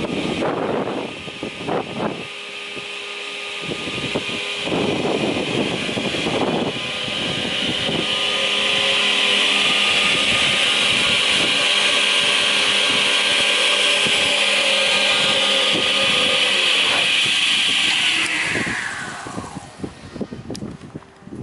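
Tenoning machine running idle: a steady high whine and hum from its motors and spinning cutter heads, with a few rushing swells in the first seven seconds. Near the end the whine falls in pitch and fades as the machine runs down.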